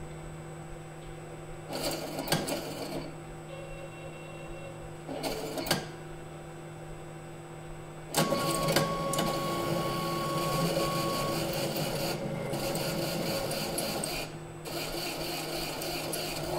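Machinery in a particle-therapy treatment room: a steady electrical hum with two short mechanical buzzes in the first six seconds, then a louder whirring buzz from about halfway that breaks off briefly near the end and starts again.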